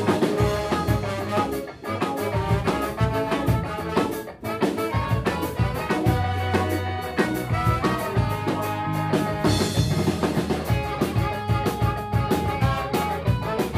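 A live band playing, with drum kit and guitar over a steady beat. There are short breaks in the playing about 2 s and 4.5 s in.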